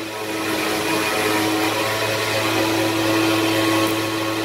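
Electric sander running steadily, a constant motor hum with a few even tones.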